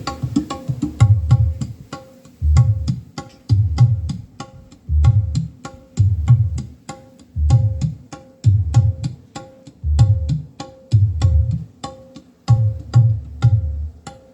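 Percussive music with hand-drum-like beats played through a PA speaker system: deep bass hits about once a second under a quick, even ticking of light percussion.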